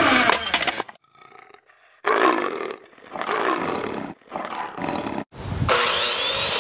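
Loud roars in several short bursts, with a brief lull about a second in. Near the end a steady rush with a rising whine takes over.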